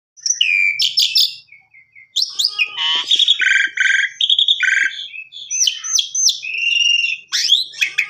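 Asian pied starling (jalak suren) singing a varied song of whistles, slurred notes and rapid trilled phrases. There is a short pause about a second and a half in.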